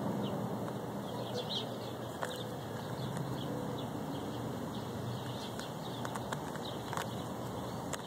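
A Rubik's Cube being turned by hand, its layers giving a few sharp clicks, over steady background noise with small birds chirping.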